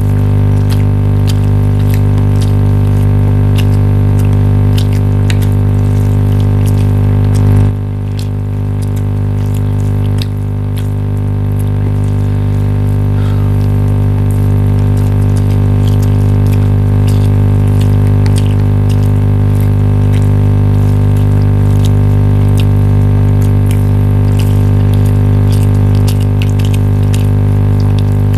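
A loud, steady hum made of several fixed tones under a hiss like running water, with faint small clicks scattered through it.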